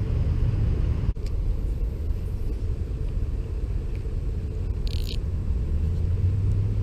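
A steady low rumble, with a brief high squeak about five seconds in.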